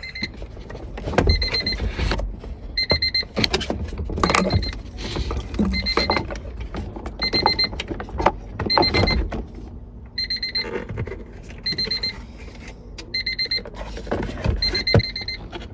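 Electronic warning beeper sounding in short bursts of rapid high beeps, about one burst every one and a half seconds, with clicks and knocks of hands handling parts in between.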